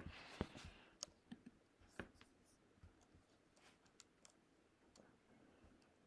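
Faint, irregular small clicks at a computer over quiet room tone; the loudest come about half a second and two seconds in.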